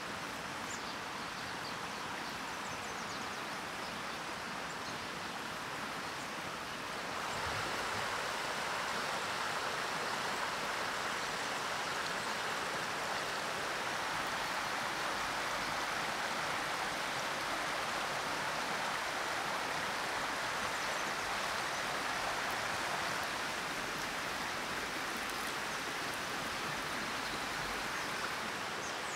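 Steady rushing of a flowing stream, stepping up in level about seven seconds in and then holding.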